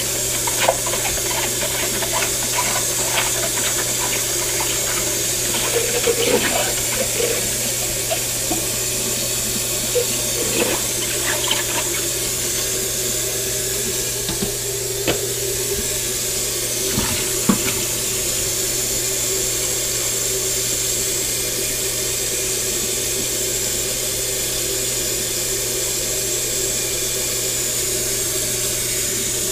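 Kitchen tap running into a stainless steel sink as dishes are rinsed under it. Sharp clinks and knocks of dishes being handled come scattered through the first half or so.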